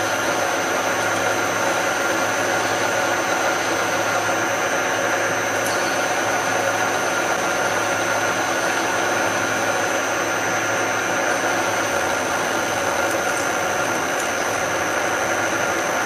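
A machine tool runs steadily as a drill cuts slowly into stainless steel. It makes an even mechanical hum with a few held tones.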